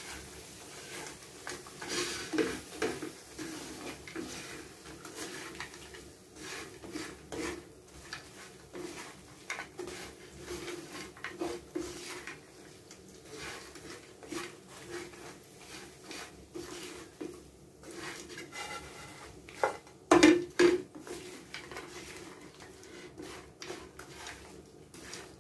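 A spatula scraping and clicking against a frying pan as crispy dried anchovies (dilis) are stirred and turned, in a steady run of short scrapes. A couple of louder knocks come about 20 seconds in.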